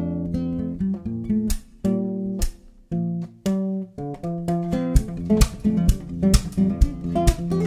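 Background music led by guitar: plucked notes, briefly thinning out about two seconds in, then picking up into a steady beat of sharp strikes.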